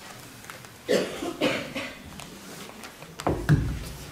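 A person coughing: two short coughs about a second in and a louder, heavier one near the end, close to the microphone.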